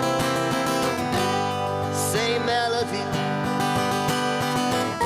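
Acoustic guitar strummed together with a resonator guitar, a duo playing a song live with some bending, sliding notes.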